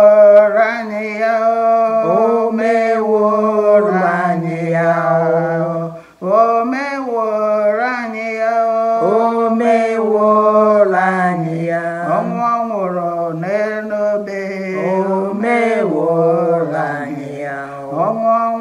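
Two women singing an Igbo praise song together, unaccompanied, with long held notes. The singing breaks off briefly about six seconds in, then goes on.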